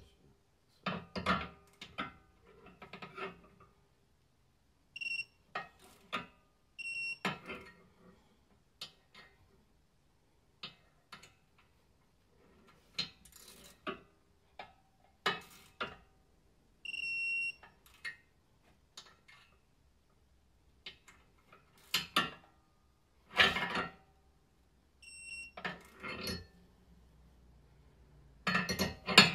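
Electronic torque wrench ratcheting with metal clicks and clanks while tightening wheel studs into the hub. It gives a few short high beeps and one longer beep about 17 seconds in, the signal that the set torque of 33.8 N·m has been reached.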